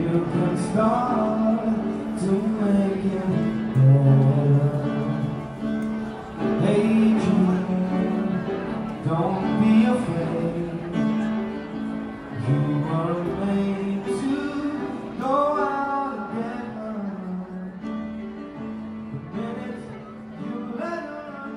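Piano music with a singing voice, growing gradually quieter over the last several seconds.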